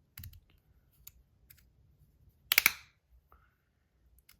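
Titanium slider fidget being worked by hand: a few light metallic ticks, then a loud, sharp clack of the slide snapping across about two and a half seconds in, followed by faint ticks.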